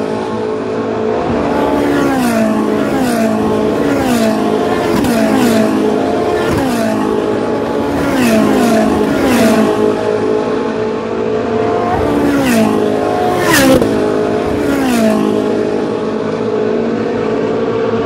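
Racing car V8 engines of a pack of Ferrari 458 Challenge cars, heard at high revs, loud and continuous. The engine note falls in pitch over and over, one car after another, roughly every second or two, with a few sharp cracks among them.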